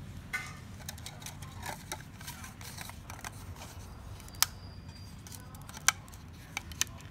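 Scattered light clicks and knocks of plastic and metal parts as a laser printer's fuser assembly is handled and taken apart by hand, with sharper snaps about four and a half, six and near seven seconds in.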